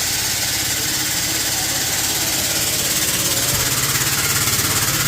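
A motor-driven machine switching on abruptly and running steadily: a loud hiss over a low, fast-pulsing hum.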